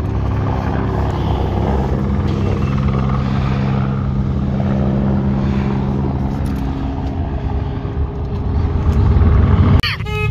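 Off-road vehicle engines running steadily with a noisy, hissing background, growing louder near the end before cutting off suddenly.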